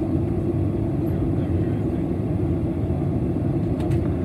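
Steady low drone of engine and airflow noise inside the passenger cabin of a WestJet Boeing 737 on its final approach.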